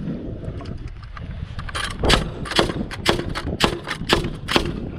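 Pneumatic framing nailer firing nails into timber roof framing: a quick run of about eight sharp shots starting about two seconds in, roughly two a second.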